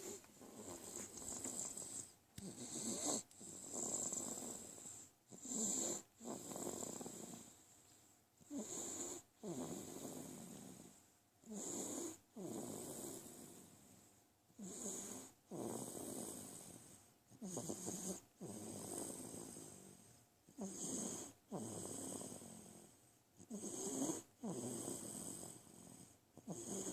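Faint, steady snoring, a snoring breath coming about once a second.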